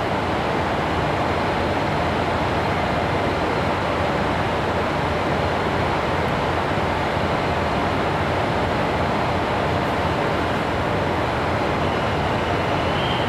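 JR 711 series electric multiple unit standing at the platform before departure, its equipment giving off a steady, even hum.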